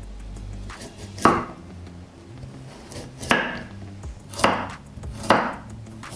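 Kitchen knife slicing through raw carrot and striking a wooden cutting board: four separate chops at uneven intervals.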